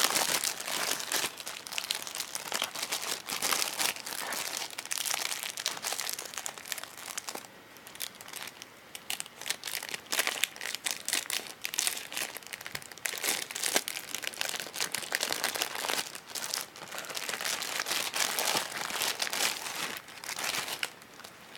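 Plastic packaging and PVC gloves crinkling and rustling as they are handled and unwrapped, in dense irregular crackles, with a quieter lull about eight seconds in and again near the end.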